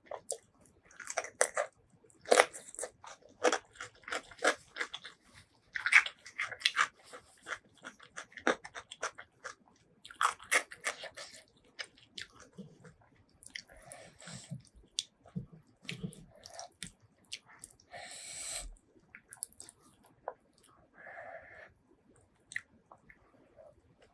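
Close-miked eating of spicy noodles and enoki mushrooms: irregular wet chewing with many sharp crunching clicks, and a short hissing slurp-like sound past the middle.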